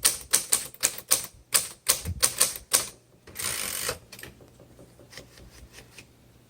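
Keys of a 1963 Royal Royalite portable typewriter being struck, sharp clacks at about three to four a second. About three and a half seconds in comes a longer noisy sound lasting under a second, followed by a few fainter clicks.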